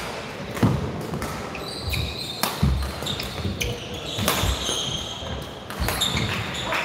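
Badminton rally: rackets smack the shuttlecock four times, about every two seconds, while shoes squeak and stamp on the court mat in between.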